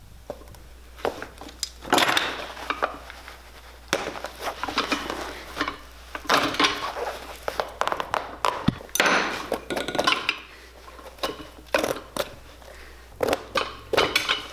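Irregular clicks, taps and scraping of hand tools working on a leather shoe, with light metallic clinks.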